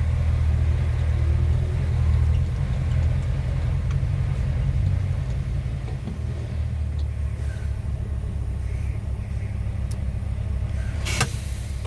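Scania R730's 16-litre V8 diesel running at low revs, a steady low rumble, a little louder in the first couple of seconds. Near the end comes one short, sharp hiss.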